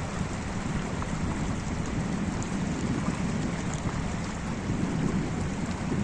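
Wide, shallow, stony river flowing close by: a steady rush of water with a strong low rumble.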